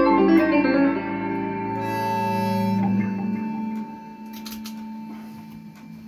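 Electric guitar played through an amplifier: a run of notes stops about a second in and the last held notes ring on and fade out over the next few seconds, leaving a low amplifier hum and a few faint clicks.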